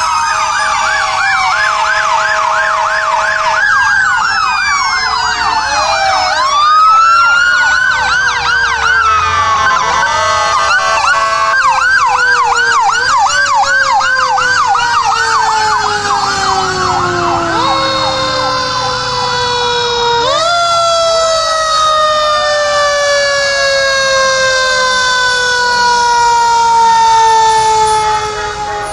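Several fire truck sirens sounding at once as the trucks drive past: fast yelping sweeps over slow wails that rise quickly and fall away over several seconds. The sirens get quieter near the end.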